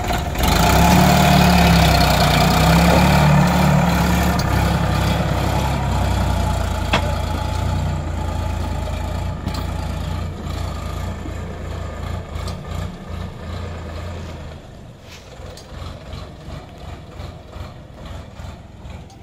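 Sonalika DI 47 RX tractor's diesel engine revving up about half a second in as it pulls off under load with a full trolley. Its sound then fades steadily as it drives away, dropping sharply about three-quarters of the way through.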